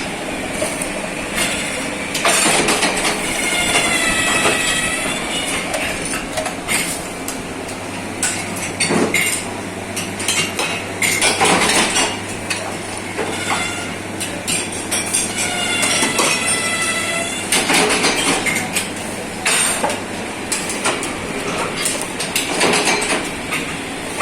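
Metal ceiling-fan rotor parts clattering and knocking as they are handled and worked, with two brief high metallic squeals. A steady machine hum starts at about a third of the way in and stops near the end.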